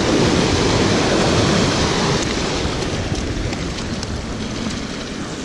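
Surf washing and splashing against the rocks of a jetty, with wind buffeting the microphone.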